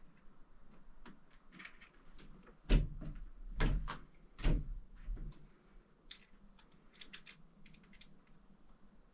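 Three heavy knocks about a second apart, with light clicks and taps before and after, as of a door or cupboard and its fittings being handled.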